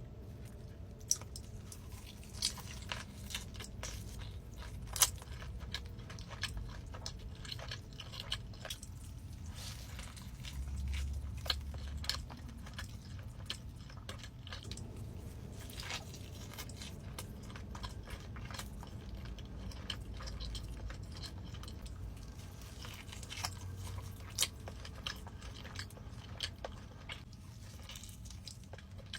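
Close-miked mukbang eating sounds: chewing with crunchy bites and wet mouth clicks, a few sharper crunches standing out.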